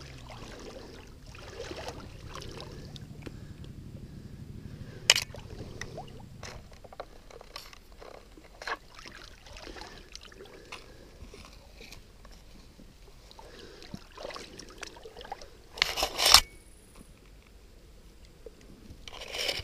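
Shallow stream water sloshing and trickling as hands grope underwater along the bank, with scattered small clicks, scrapes and rustles of grass and branches close to the camera. A sharp click comes about five seconds in and a loud, brief burst of noise about sixteen seconds in.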